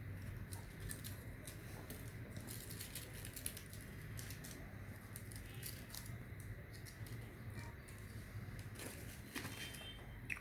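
A sheet of paper being handled and folded, giving soft, irregular crinkles and rustles over a low steady hum.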